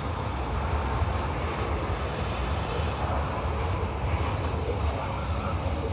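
Open-top freight wagons of a passing freight train rolling by on the adjacent track: a steady low rumble of steel wheels on rail.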